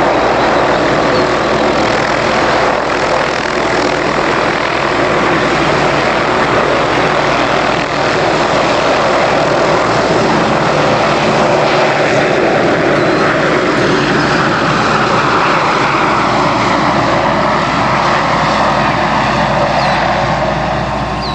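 MD500E helicopter's turbine engine and rotor running at lift-off power as it rises off the pad and climbs away. In the second half the pitch of the noise sags downward as it moves off, and it grows a little quieter near the end.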